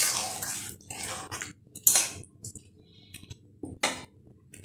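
Metal spatula scraping and knocking against a metal wok of thick curry: a sharp stroke right at the start, another about two seconds in and a third near the end, with fainter scrapes between.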